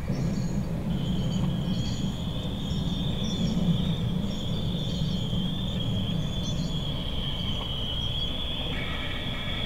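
Night insects: a steady high-pitched trill that starts about a second in, with fainter, regularly repeating chirps above it, over a low steady rumble.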